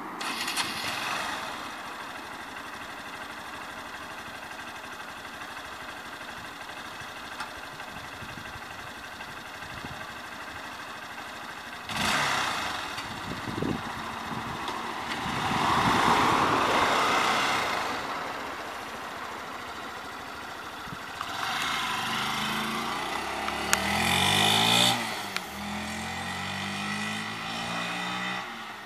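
Honda CBF125's small single-cylinder four-stroke engine running steadily at idle. Later it pulls away and accelerates, its pitch rising in steps through the gears. A passing vehicle swells up and fades partway through.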